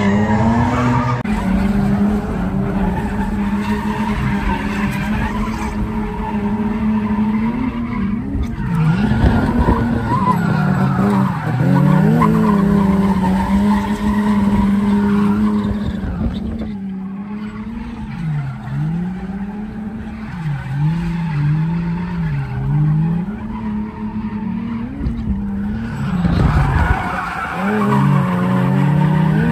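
Drift cars sliding in tandem: engines held at high revs, the pitch repeatedly dropping and climbing as the throttle is worked, with tyres screeching throughout.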